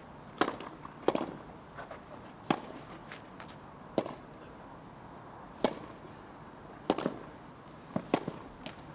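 A tennis rally on a grass court: a tennis ball is struck back and forth by the rackets in sharp cracks about every second and a half, with softer ticks between them.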